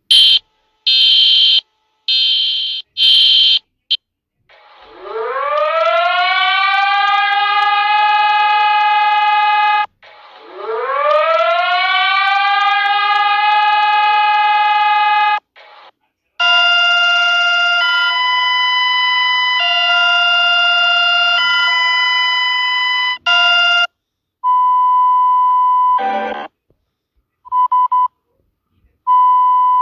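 A series of alarm signals played one after another. First come about four short, high beeps. Then a siren winds up from low to a steady wail, twice, followed by a multi-tone alert stepping between pitches, and short beeps near the end.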